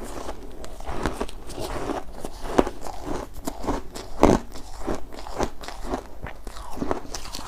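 Shaved ice being bitten and chewed: a steady run of irregular crunches, with two louder bites a little before the middle.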